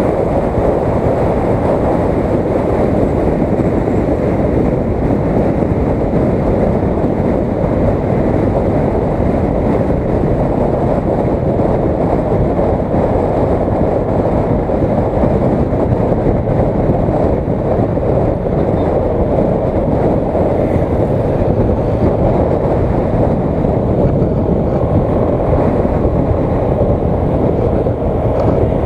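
Motorcycle riding at road speed, heard through a helmet-mounted action camera: a steady, dense rumble of wind and road noise with the engine running underneath.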